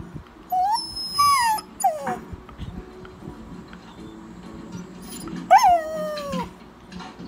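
A dog whining up at its owner: a few short cries that rise and fall in the first two seconds, then one longer cry about five and a half seconds in that starts high and slides down, the loudest of them. The whining is the dog pestering its owner to go to bed.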